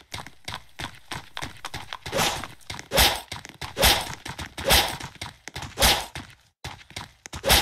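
Horse hooves thudding on the ground: a heavy thud about once a second, with smaller knocks between.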